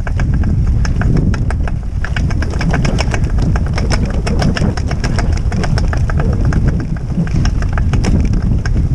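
Wheeled dog-training rig rolling fast over a rough grass track: a steady low rumble from its tyres and frame, with quick rattling clicks and knocks throughout.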